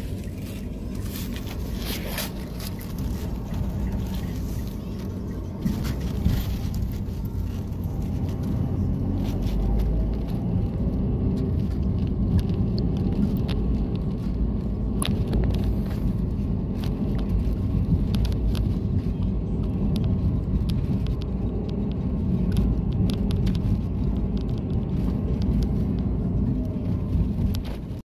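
Car cabin noise while driving: a steady low rumble of engine and tyres on the road, with a few light clicks.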